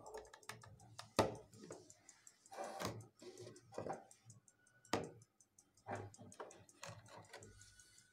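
Irregular sharp clicks and knocks of a plastic clamp meter being handled and set down on a concrete bench, about one strong knock every second or two.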